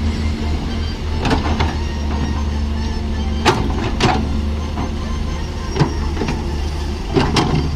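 Excavator's diesel engine running steadily under load, with sharp knocks every second or two: bucket and linkage clanks as it digs.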